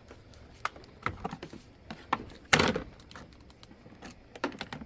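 Hard plastic toy-kitchen parts clicking and knocking as they are handled and fitted together, with one louder clatter about two and a half seconds in.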